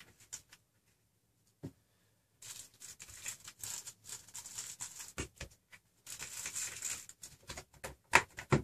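Plastic compartment box of heat shrink tubing being handled: pieces picked out of the compartments and the case shifted and closed on a cloth-covered bench. Scattered plastic clicks and stretches of rustling, with a couple of sharper clicks near the end.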